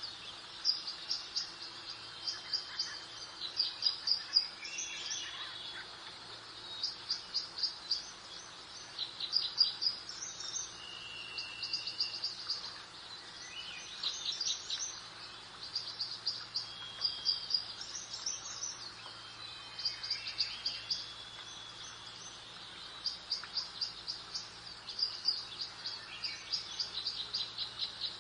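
Songbirds singing: quick repeated chirping trills and short whistled notes, one after another all the way through, over a soft steady background hiss.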